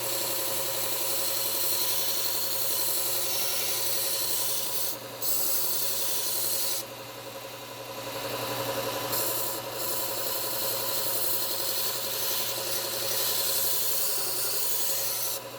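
A steel knife blade being ground against the abrasive belt of a Bucktool slow-speed bench belt sander: a steady grinding hiss over the sander's motor hum. The hiss drops out briefly about five seconds in and eases again for a second or so near seven seconds, leaving the motor hum.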